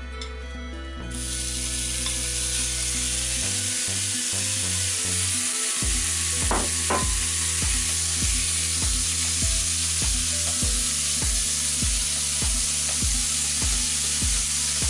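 Minced pork sizzling as it hits a hot frying pan with garlic and chilli, starting about a second in, then frying steadily as it is stirred and broken up with chopsticks.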